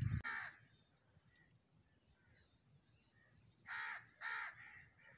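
Crow cawing: one harsh caw right at the start, then two more in quick succession about four seconds in.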